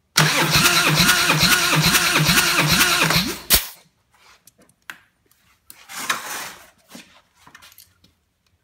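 2001 Harley-Davidson Fat Boy's Twin Cam 88B V-twin turned over on its starter for a compression test, with a compression gauge screwed into a plug hole. It cranks with an even beat about two and a half times a second and cuts off sharply about three and a half seconds in, followed by quieter clicks and handling noises at the engine.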